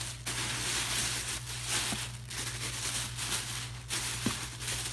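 Thin plastic shopping bag rustling and crinkling as hands pull and fold it, in several swells with short pauses between.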